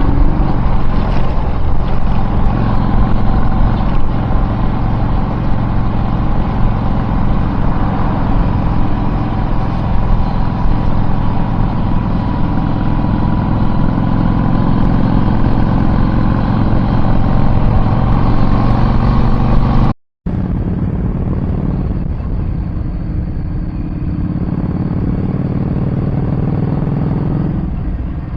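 Car driving, a steady low engine and road rumble heard from inside. It drops out for a moment about two-thirds of the way through and comes back a little quieter.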